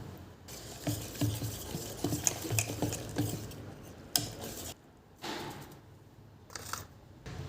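Small hard household objects clattering and clinking as they are handled, a quick run of light knocks, followed by a couple of short swishing rustles in the second half.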